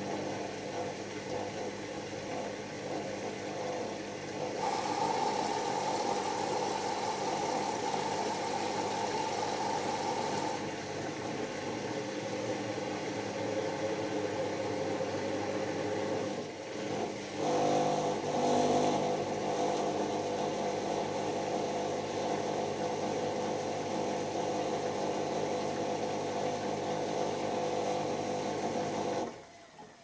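Beko WM6120W washing machine spinning its drum: a steady motor whine over a hum, stepping up in pitch and loudness about five seconds in and shifting again midway. Near the end the motor cuts out and the sound falls away quickly as the drum coasts.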